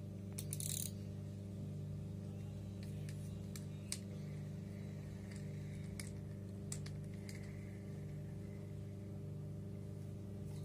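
Lucana Spin 40 spinning reel handled and cranked by hand: soft whirring of the rotor and bail turning, with scattered sharp clicks from handling it. A steady low hum runs under it all.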